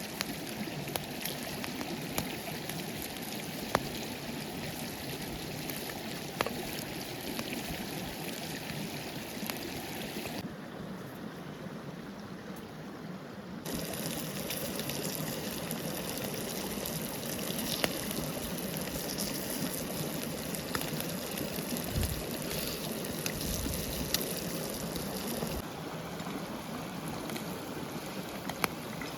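Forest stream flowing steadily, with a few sharp clicks. It drops quieter for about three seconds roughly ten seconds in.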